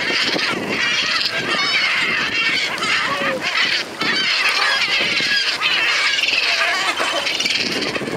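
A large flock of gulls calling over one another: a loud, dense, continuous din of overlapping squawks and cries, as they crowd and flap together on the water.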